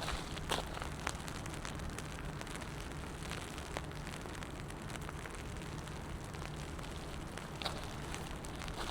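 Steady rain falling on wet pavement, with scattered sharp drop hits over the constant hiss.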